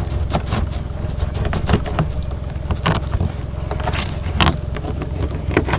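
Knife cutting up a small bait fish on a plastic cutting board, with irregular scrapes and taps of the blade against the board, over a steady low rumble.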